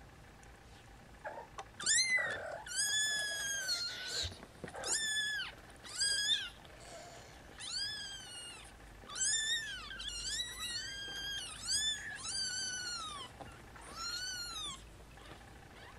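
Young kittens mewing: about a dozen high-pitched mews in quick succession, each rising then falling in pitch, starting about two seconds in and stopping near the end.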